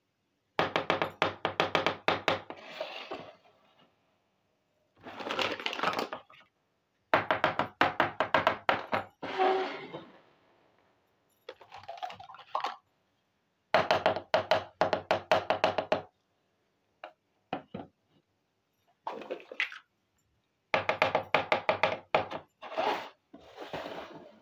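Small plastic toy kitchen pieces being handled and set down: bursts of rapid clicking and knocking, each about two seconds long, with short scraping sounds between.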